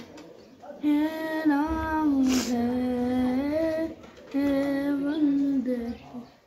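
A high voice singing a slow melody unaccompanied, in long held notes over two phrases with a short break between them. A short hiss cuts in about two and a half seconds in.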